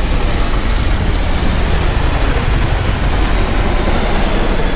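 Boeing CH-47 Chinook tandem-rotor military helicopters passing low overhead: a loud, steady rotor beat over a dense rumble, which the onlookers call powerful.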